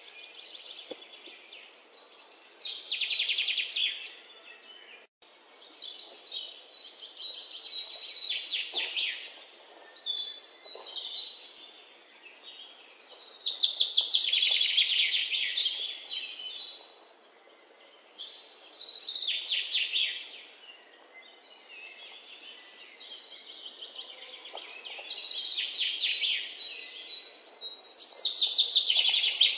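Songbirds singing in repeated bouts of rapid trills and chirps, each a second or two long, with short quieter gaps between them.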